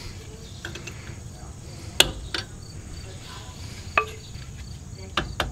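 Hammer tapping a flat screwdriver to pry the metal dust cap off a trailer wheel hub: a few sharp metallic taps and clicks, the loudest about two seconds in and a quick cluster near the end.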